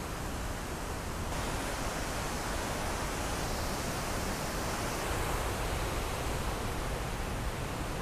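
Steady rushing of running water, growing a little louder and brighter about a second in.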